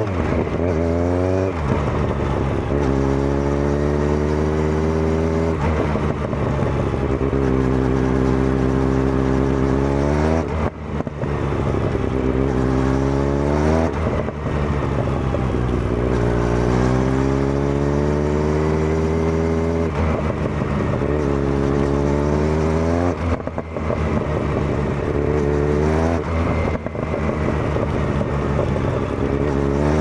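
Kawasaki Z900's inline-four through a Zard full exhaust system, heard on board while riding: the engine note climbs again and again under throttle, dropping back at each gear change or lift of the throttle, about six or seven times.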